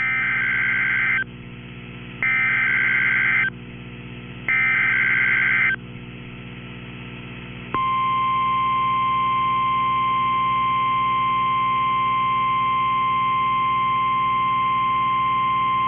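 Emergency Alert System SAME header on NOAA Weather Radio: three screeching digital data bursts about a second long, sent a second apart. About eight seconds in comes the steady single-pitch 1050 Hz warning alarm tone, which signals an urgent alert such as a tornado warning. A steady low hum runs underneath.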